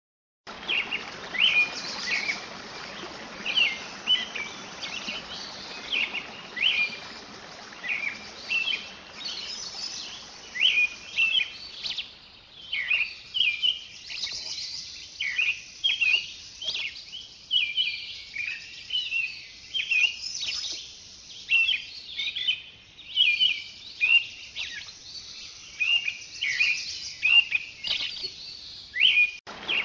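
Many birds chirping and calling in short, quick repeated phrases, with a steady hiss underneath that drops away about twelve seconds in.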